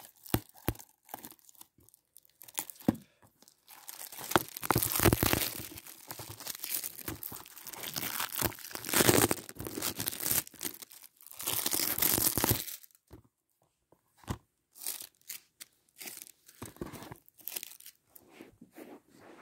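Plastic shrink-wrap being torn and peeled off a Blu-ray case: crinkling and crackling for about nine seconds, then a few scattered small clicks and taps.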